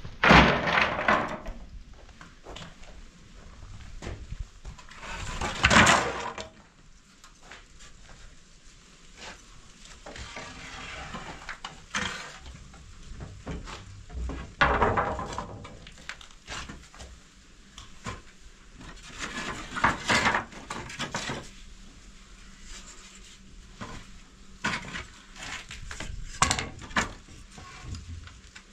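Irregular knocks, clatter and rustling of objects being handled, with a few louder scraping swishes among scattered sharp clicks.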